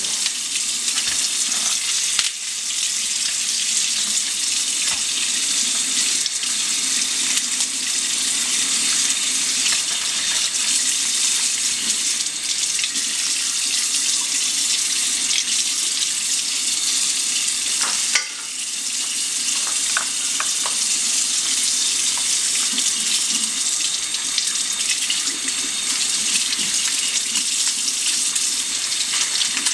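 Kitchen faucet running in a steady stream into a sink as a cleaned crab is rinsed under it. The water sound dips briefly twice, about two seconds in and again about eighteen seconds in.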